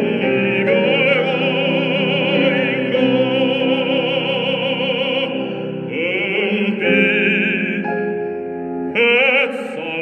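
Baritone singing a Korean art song (gagok) in classical, operatic style with strong vibrato, over instrumental accompaniment, pausing briefly between phrases.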